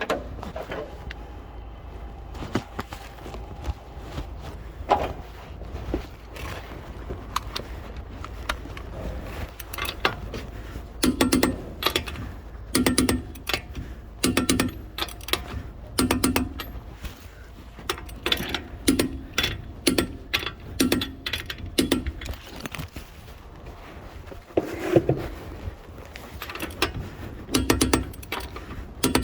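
Ratchet wrench clicking in short bursts, one to two seconds apart, from about ten seconds in, as lug nuts are turned during a tyre change. Before that, only faint handling noise.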